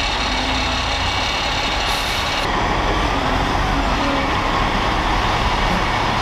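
Heavy military vehicle engines running steadily.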